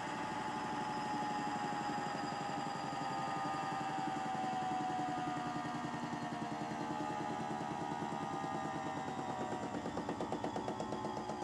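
Toy Miele washing machine's small motor and drum at the end of the final spin, the motor whine slowly falling in pitch as the drum slows down. Near the end the sound takes on a regular pulsing wobble.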